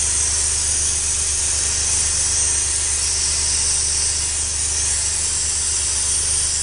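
Handheld blasting gun hissing steadily as it strips spray-painted graffiti off a stone wall, with a low steady hum underneath.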